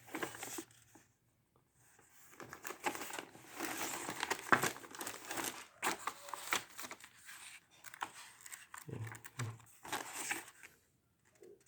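Paper rustling and crinkling in irregular bursts, with small clicks, as papers are handled and leafed through.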